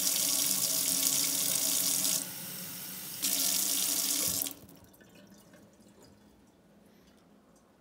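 Kitchen faucet running a steady stream into a stainless steel sink. The sound dips quieter for about a second partway through, then cuts off about four and a half seconds in as the tap is shut.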